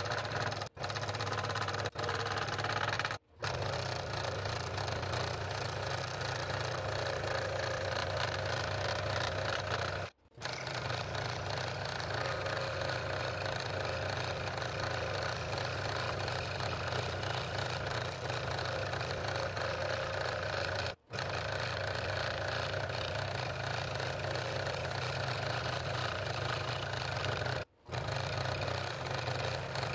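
Scroll saw running steadily, its reciprocating blade cutting a ring out of a 3/4-inch-thick board. The sound drops out for an instant four times.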